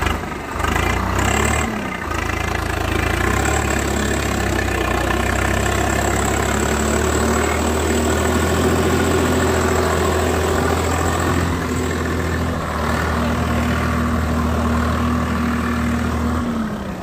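Swaraj 742 FE tractor's three-cylinder diesel engine running steadily under load as the tractor drives out of the mud, its deep drone falling away near the end.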